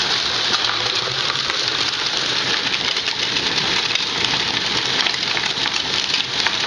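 Homemade ball mill running: a five-gallon plastic paint bucket turning on roller-blade wheels, with heavy steel shot puts and glass marbles tumbling and clattering inside as they grind charcoal. A steady, dense rattle of many small clicks.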